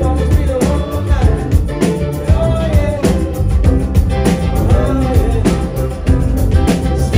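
Live rock band playing loudly: a singing voice over a steady drum beat, bass and Vox keyboard.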